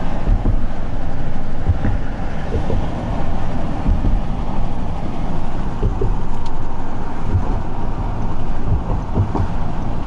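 Car driving on a paved road, heard from inside the cabin: a steady low rumble of tyre and road noise with the engine underneath.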